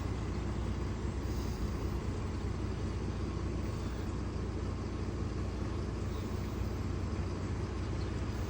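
Mercedes-Benz GLK 350's 3.5-litre V6 idling steadily, run after new spark plugs and an ignition coil to check whether a cylinder 2 misfire is gone.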